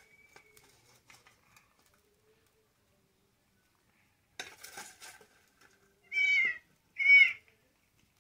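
A cat meows twice, two short calls about a second apart near the end. Just before them, a brief clatter of the metal spatula and steel plate as fish pieces go into the pot of curry.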